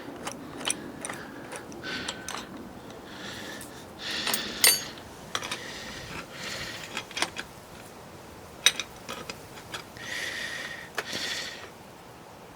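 Metal clinks and clicks of a steel bearing puller being fitted and handled on a bicycle crank, with a couple of short scraping bursts.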